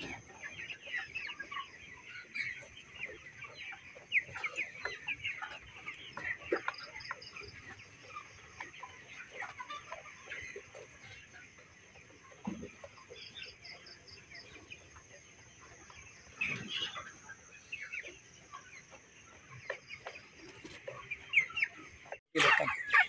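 A large flock of white broiler chickens clucking and chirping, with many short calls overlapping continuously.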